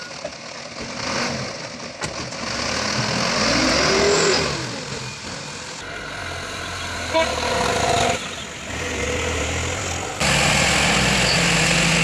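Heavy vehicle engines, a loaded dump truck and a farm tractor, running and revving. The sound is chopped into short clips, so it changes abruptly several times, and one stretch rises and falls in pitch.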